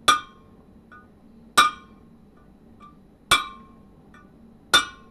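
A hammer strikes a brass punch set on a large tapered bearing race in an M923 truck wheel hub: four sharp ringing taps about a second and a half apart, one at each spot around the race. The punch rebounds at all four spots, the sign that the race is fully seated.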